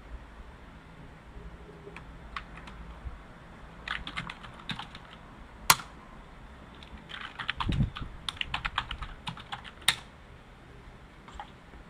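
Typing on a computer keyboard in short runs of keystrokes as two short commands are entered. Each run ends with a single louder key strike, the Enter key, about six and ten seconds in. A low thud comes partway through the second run.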